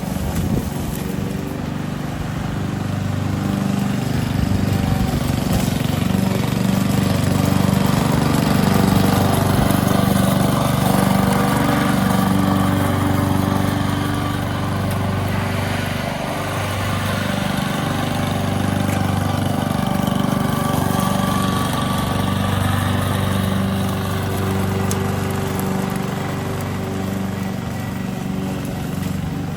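Honda 21-inch walk-behind lawn mower engine running steadily as it picks up fallen leaves, its level swelling and easing a little as it moves.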